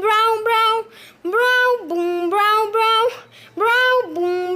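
A child singing a wordless syllable chant, short held notes in a steady rhythm alternating between two pitches.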